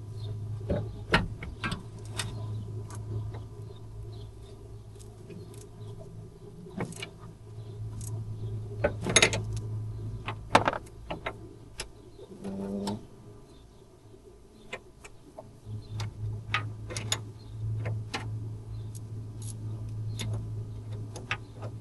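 Hand tools working on a stuck screw: irregular metal clicks, taps and knocks over a steady low hum that drops out for a few seconds about halfway through.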